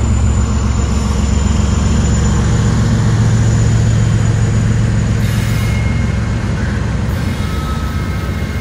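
Freight train passing with a diesel distributed-power locomotive running heavily among the cars. The train rolls on with the level easing slightly in the second half, and thin squeal tones from the wheels come in during the last few seconds.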